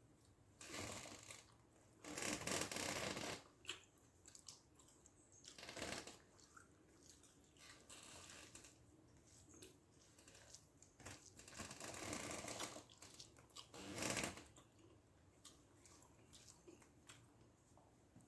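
Faint eating sounds: a meal of rice with mackerel fish gravy being handled and chewed, in a series of short rustling, squishing bursts.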